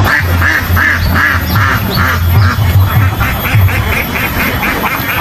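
A flock of domestic ducks quacking over and over, the quacks coming quicker in the second half.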